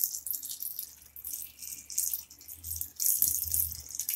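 Water pouring from a jar into an aluminium pressure cooker, splashing onto the dal and sliced radish inside, with an uneven hiss that rises and falls with the pour.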